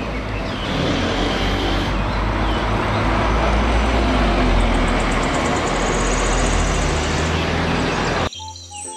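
Double-decker bus driving past close and away along a street, its engine running with a low steady hum under road and traffic noise. The sound cuts off suddenly near the end.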